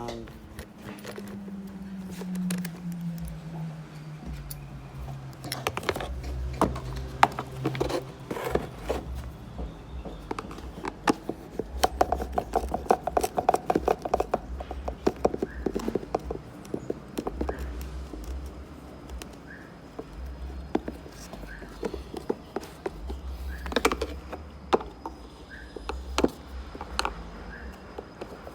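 Plastic AC evaporator core housing being worked apart by hand: scattered clicks, knocks and scrapes from the case, clips and fasteners, with a burst of rapid clicking about halfway through. A low hum falls in pitch over the first few seconds.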